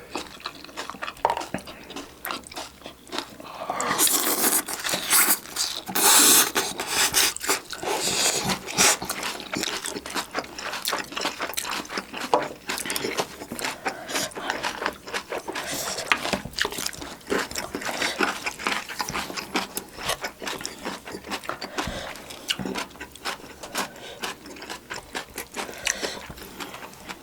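Close-up eating sounds of chicken and rice: chewing and many small clicks, with two louder noisy bursts about four and six seconds in.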